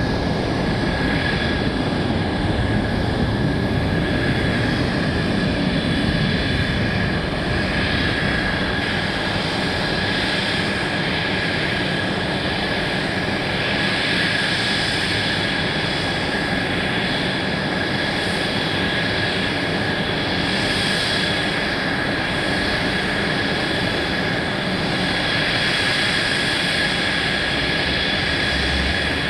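Jet aircraft engine running steadily, a constant high whine over a rumble.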